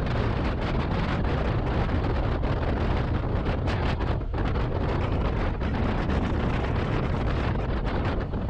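Wind rushing over the microphone of a motorcycle riding along at speed, a steady loud roar with no breaks.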